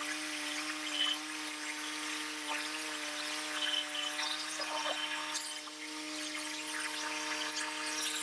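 Gas-engine sawmill running at a steady pitch, its blade cutting through a knotty pine log.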